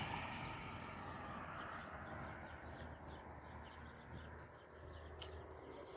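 Faint outdoor ambience on a hillside, with a few scattered light clicks.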